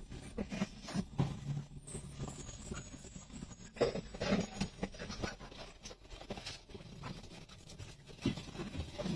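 Vehicle driving over a rough, potholed road, heard inside the cab: a low engine hum under irregular knocks and rattles from the cab as it goes over the bumps.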